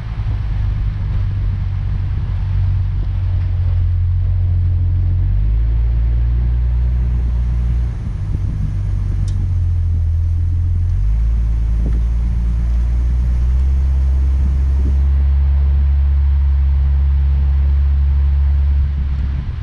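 Steady low rumble of a vehicle in motion, its deep drone shifting in pitch every few seconds.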